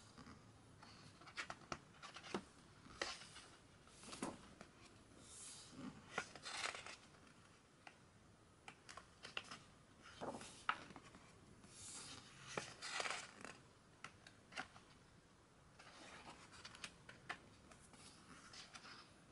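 Pages of a thick hardcover photobook being turned by hand: faint, irregular paper swishes and rustles with small taps as each page is lifted and laid flat.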